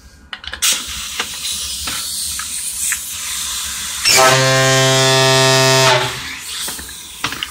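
Homemade PVC fog horn, blown on compressed air at about 120 psi, sounding one steady low blast of about two seconds starting a little past halfway. Compressed air hisses before and after the blast.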